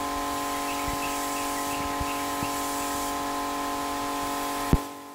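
Electric high pressure washer running with a steady hum over a hiss of spraying, then a sharp click near the end as the motor cuts out.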